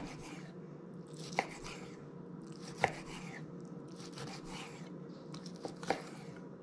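A kitchen knife cutting a raw lingcod fillet into chunks on a wooden cutting board: soft slicing through the flesh, with a sharp knock of the blade on the board every second or so, two of them close together near the end.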